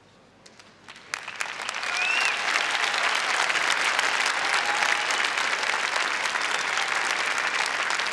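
Arena crowd applauding. A few scattered claps come first, then the applause swells within about a second and carries on steadily.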